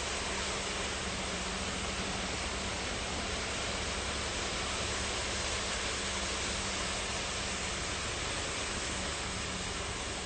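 Concrete mixer truck running while it loads concrete into a crane's bucket: a steady rushing noise over an even low hum.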